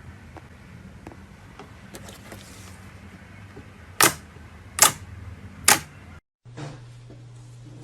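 Three sharp clicks about a second apart, the loudest sounds here, over a faint steady hum with soft scattered ticks; the sound cuts out briefly after the third click and comes back with a different background.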